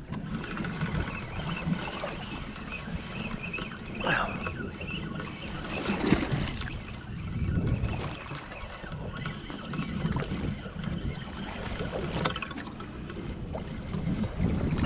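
Small waves lapping and slapping against a small boat's fibreglass hull, with wind on the microphone; the sound swells and fades about every two seconds.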